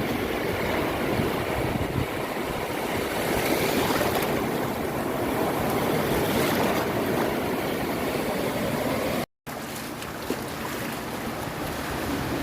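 Ocean waves washing onto a beach, a steady surf rush. About three-quarters of the way through it cuts out abruptly for a split second, then resumes a little quieter, like a splice in the recording.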